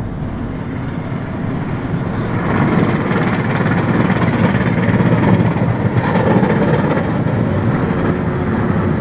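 Cement mixer truck driving past, its engine and tyres making a steady rumble that builds to its loudest about halfway through.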